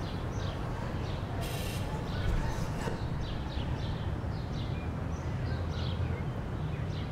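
Outdoor ambience: birds chirping repeatedly in short calls over a steady low rumble.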